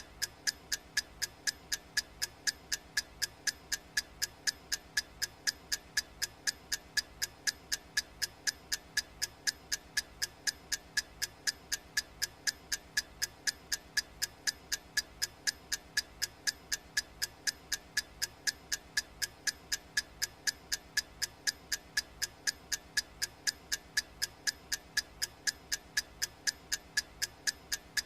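Clock ticking at a steady, even pace, about two sharp ticks a second.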